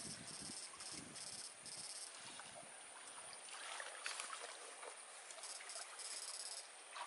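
Faint water sloshing and splashing as a person wades through a shallow muddy ditch and works an electrofishing pole probe through the water and weeds, with a louder splash about four seconds in. A thin high-pitched buzz comes and goes over it.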